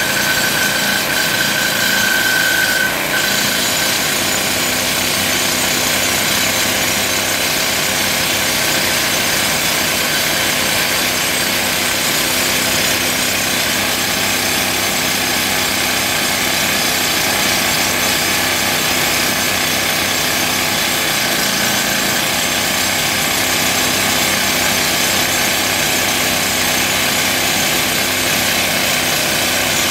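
Toku TS 55 pneumatic rock drill hammering a hole into rock, a loud steady clatter with no let-up. A high steady tone is heard over it at first and fades out about three seconds in.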